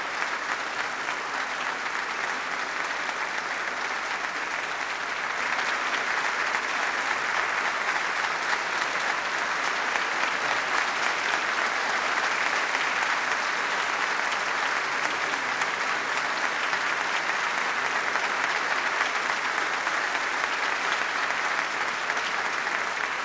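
Long, sustained applause from a large audience in a chamber, growing louder about five seconds in and then holding steady.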